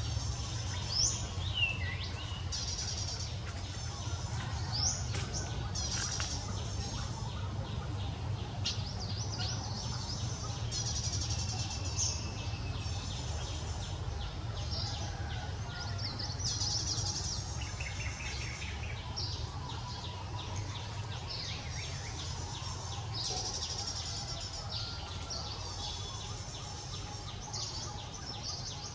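Outdoor ambience of many small birds calling, with rapid high chirps and a few falling whistles about a second in, over a steady low rumble.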